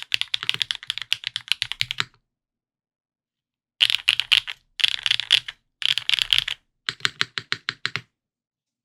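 Typing on an F2-84 mechanical keyboard with lubed Gateron Pure Sky switches in an aluminium plate and GMK Olivia keycaps: a steady run of keystrokes that stops about two seconds in, then after a pause four short bursts of fast typing, ending shortly before the close.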